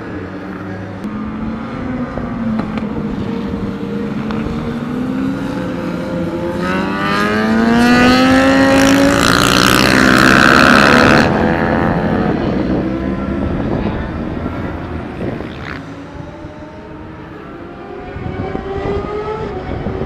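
Car engines on a race circuit under hard acceleration, their pitch rising and growing loudest about halfway through, where a harsh loud stretch cuts off suddenly; steadier, quieter engine sound follows.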